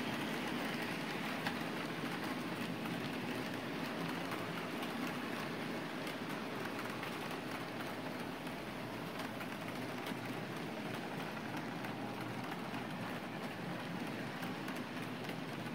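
Model freight cars rolling along the layout's track: a steady rolling rattle peppered with many small quick clicks from the wheels, getting a little quieter over the stretch.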